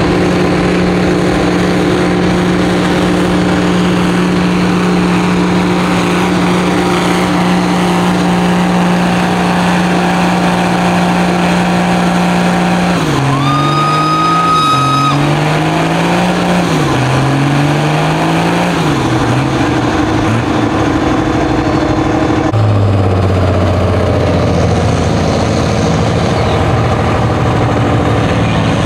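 Pulling tractor's diesel engine held at high revs under full load as it drags a weight-transfer sled. About 13 s in the revs swing up and down several times as the engine bogs under the sled, and a steam whistle blows for about two seconds. From about 22 s a lower, steadier engine note takes over.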